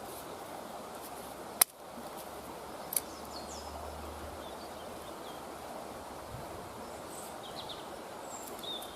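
Outdoor woodland ambience: a steady hiss with a few short bird chirps. A sharp crack about one and a half seconds in, the loudest sound, and a lighter click near three seconds.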